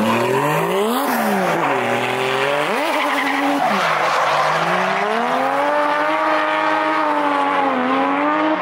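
Toyota JZX100 drift car sliding round the course, its engine revving up and falling back over and over, with tyres squealing on the asphalt.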